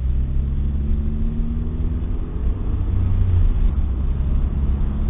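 Car engine and road noise heard from inside the cabin while driving: a steady low rumble, with the engine note climbing slightly a second or two in.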